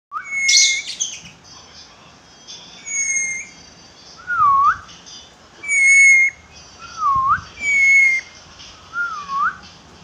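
Black-capped lory whistling: a short harsh squawk at the start, then clear whistles alternating between a flat, steady note and a lower note that dips and rises again, about one every second and a half.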